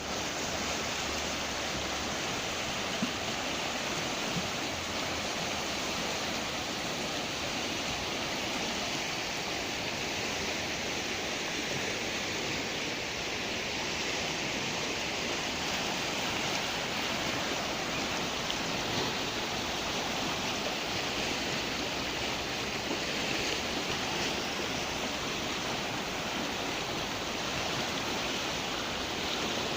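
Düden Waterfall's water pouring and rushing in a steady, unbroken roar.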